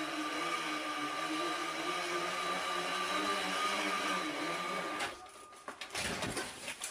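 Bicycle on an indoor trainer, its rear wheel spinning with a steady whir that wavers slightly in pitch. The whir cuts off abruptly about five seconds in. A clatter of knocks follows as the rider and bike fall over.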